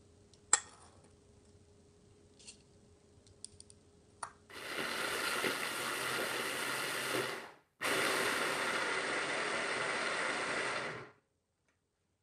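Hand blender's motor unit on a chopper bowl running in two bursts of about three seconds each, with a short break between, pureeing kiwi, garlic and green onion in liquid. Before it come a few light clicks and one sharp clack. The motor stops abruptly.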